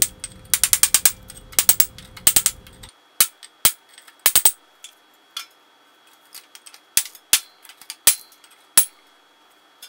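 Masonry chisel chipping crusted forge-welding flux off a forge floor brick: sharp clinking strikes, coming in quick bursts for the first couple of seconds, then as single strikes about a second apart.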